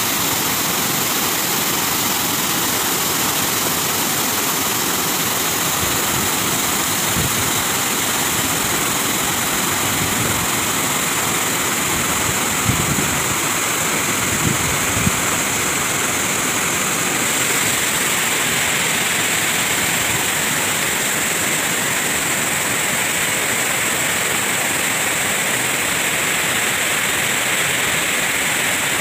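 Steady rushing roar of monsoon waterfalls and running water pouring down the hillside. A few dull knocks sound briefly about halfway through.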